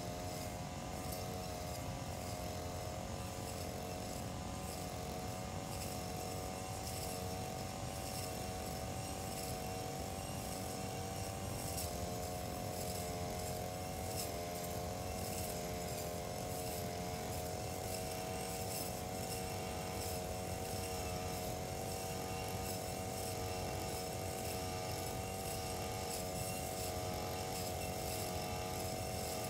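Brush cutter's small engine running steadily while cutting grass, with its pitch dipping briefly twice about halfway through.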